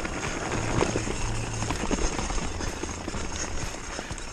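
Mountain bike rolling along a leaf-covered dirt trail: a steady rush of tyre and ground noise with frequent small knocks and rattles from the bike over bumps.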